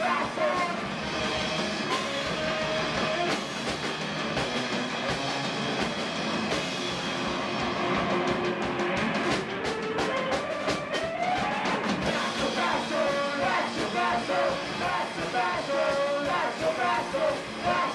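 Punk rock band playing live: singing over guitar and drum kit, with a quick run of drum hits about halfway through.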